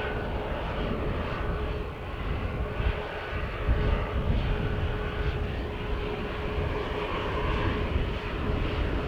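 Aircraft engines running steadily at the airport, with a steady whining tone over the engine noise. Wind buffets the microphone with a fluttering low rumble.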